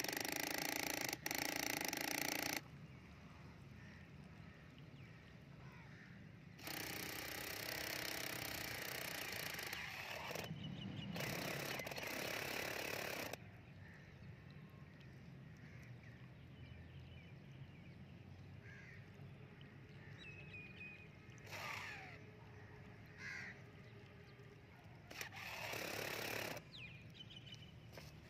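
Small electric gear motor on a model dam's sluice gate running in several bursts of a few seconds, each starting and stopping abruptly. Crows caw faintly between the bursts.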